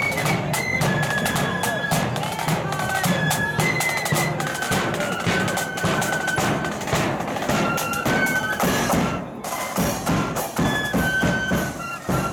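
Marching flute band playing a march: high flutes carry the melody over side drums and a bass drum beat.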